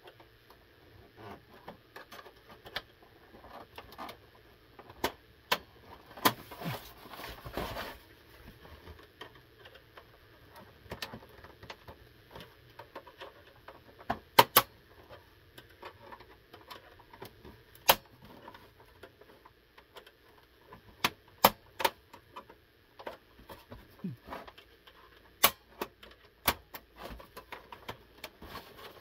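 Irregular sharp plastic clicks and snaps, with a stretch of scraping about six to eight seconds in, as the plastic shell of an Xbox 360 S console is pried open with a tool and by hand. The loudest is a close pair of snaps about halfway through.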